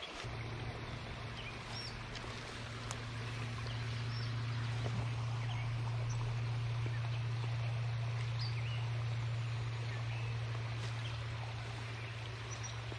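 Water of a small creek flowing, with a few faint high bird chirps and a steady low hum underneath.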